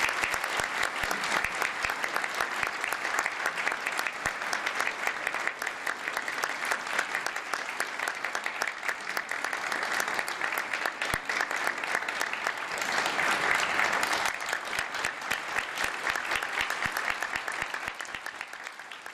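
Audience applauding: dense, steady clapping that swells a little past the middle and thins toward the end.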